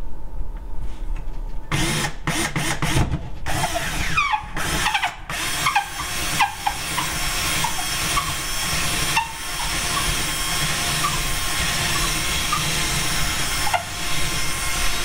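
DeWalt DCD710 12-volt cordless drill boring a small hole through drywall for a toggle anchor: a few short bursts about two seconds in, then running steadily for most of the rest, with a brief pause near the end.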